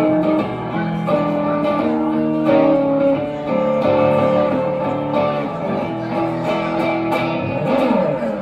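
Electric guitar playing live, chords and held notes changing about every half second, with sliding pitches near the end.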